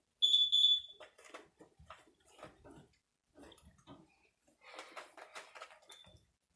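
Cockatiel giving a short whistled chirp in two quick pulses, with scratching and rustling after it and a brief repeat of the whistle near the end.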